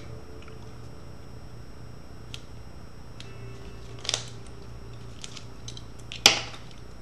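Drawing tools being handled on a table: a few small clicks and taps, a double click about four seconds in and a sharper, louder tap near the end as a tool is set down. A low steady hum runs underneath.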